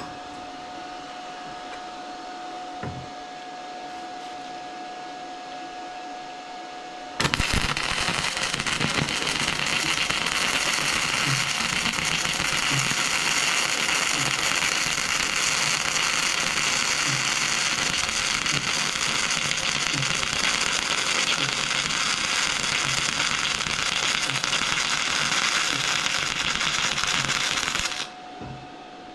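Flux-core wire welder (Arc Captain MIG145 Pro running .030 flux-core wire at the 145 setting) striking an arc about seven seconds in and running a bead on quarter-inch steel plate with a steady crackling sizzle for about twenty seconds, then cutting off. Before the arc strikes, only a steady hum.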